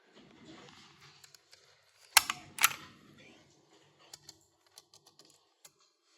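Two loud, sharp clicks about half a second apart, followed by several fainter clicks.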